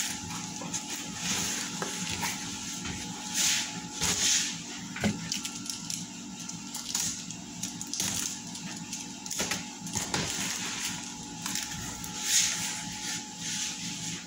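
Cardboard box being cut open by hand: a blade scraping and slitting through packing tape and cardboard in short, repeated strokes, with rustling and a few sharp knocks.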